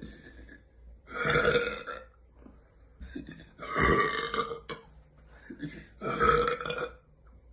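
A young woman burping loudly three times, each burp lasting about a second, with a pause of a second or two between them.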